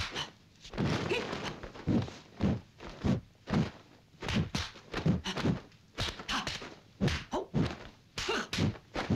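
Kung fu film fight sound effects: a rapid run of dubbed punch and block impacts, thuds and whacks about two a second, with noisy rustling stretches between some of the blows.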